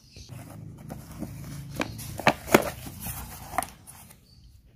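Cardboard box being opened by hand: rustling and a run of sharp cardboard snaps and clicks, loudest about two and a half seconds in, over a faint low hum.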